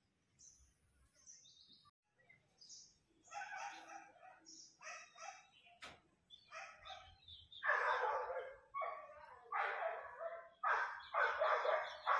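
A few short high bird chirps, then a dog barking repeatedly, the barks growing louder from about halfway and coming about once a second.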